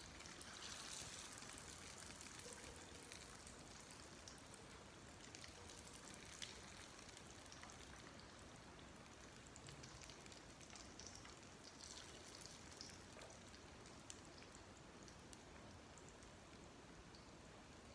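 Rice-paper spring rolls frying in oil in a pan: a faint, steady sizzle with scattered crackles, a little louder in the first couple of seconds.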